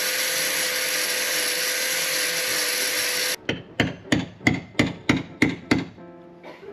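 Angle grinder with a coarse sanding disc grinding wood, a steady whine over the noise, cutting off suddenly about three seconds in. Then a hammer taps a glued wooden plug into a screw hole in the hardwood rail: about nine quick blows, roughly four a second.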